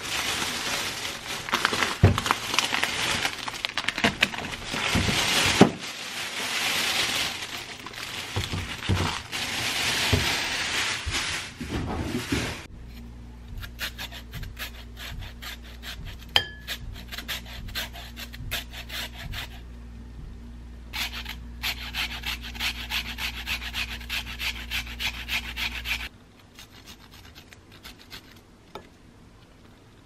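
A plastic bag rustling as carrots are taken out of it for about the first twelve seconds. Then a carrot is grated on a flat metal hand grater: quick, even rasping strokes that stop a few seconds before the end.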